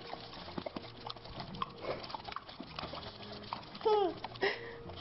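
Dog licking close to the microphone: wet lapping and mouth clicks, then a short whine falling in pitch about four seconds in.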